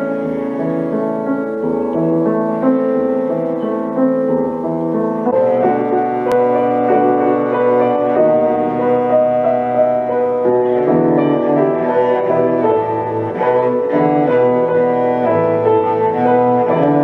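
Classical music for cello and piano, a cello sonata, with held notes over the piano. The music grows fuller and lower from about five seconds in.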